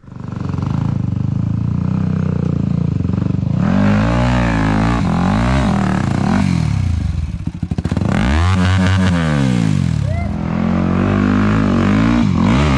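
Dirt bike engine working under heavy load on a steep rocky climb, revved hard and falling back several times as the rider struggles up.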